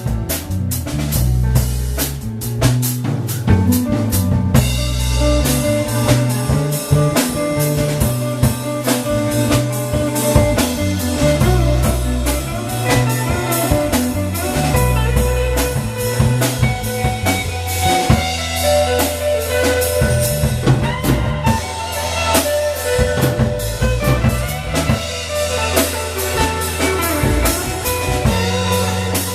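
Live blues band playing, with a drum kit and bass keeping a steady groove. Held melodic lead lines come in about four seconds in.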